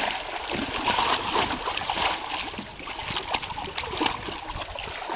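Sea water splashing and sloshing against the side of a small boat, with many short, irregular splashes.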